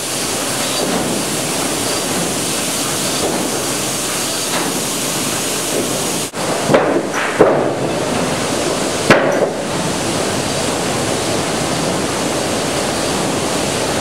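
Steady loud noise of sawmill sorting-line machinery, with three sharp knocks of sawn planks dropping into the sorting pockets about seven to nine seconds in.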